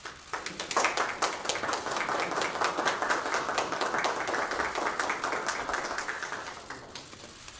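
A small group of people applauding: dense hand clapping starts just after the beginning and dies away near the end.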